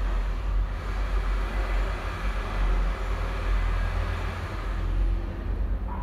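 Steady low background rumble with no clear events, its energy heaviest in the deep bass.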